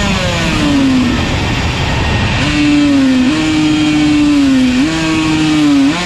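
Yamaha TZ125 125cc two-stroke racing engine running hard. Its note drops away in the first second, then is held with two sudden steps up in pitch, like gearchanges.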